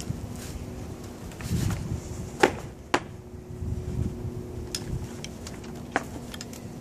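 Shoulder straps and fabric of a Grip A-Series disc golf backpack being handled: rustling with a few sharp clicks and knocks, the loudest about two and a half and three seconds in and another near six seconds. Low wind rumble on the microphone underneath.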